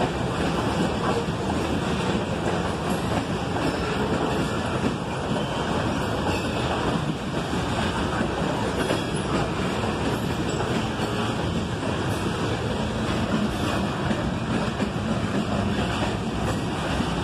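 Freight cars (covered hoppers, then autoracks) rolling past on steel rails: a steady, continuous noise of wheels running on the track.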